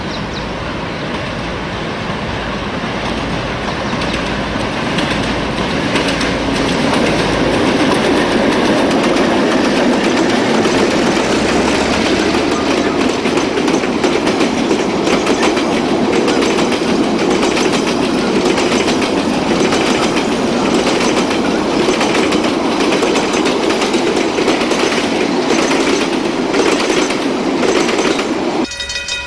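Train passing close by, its wheels clicking over the rail joints, growing louder over the first several seconds and then staying loud until it cuts off abruptly near the end.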